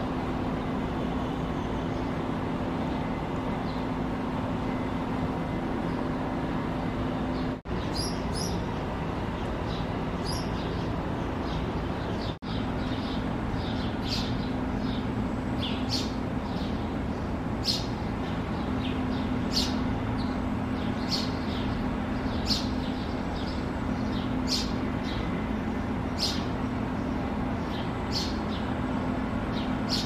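Male house sparrow giving short repeated chirps, about one a second, mostly in the second half, over a steady low hum of traffic.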